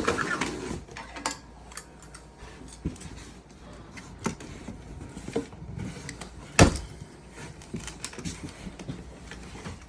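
Handling noise from lifting a new chainsaw out of its packaging: rustles and scattered light knocks and clicks, with one sharp, louder knock about two-thirds of the way through.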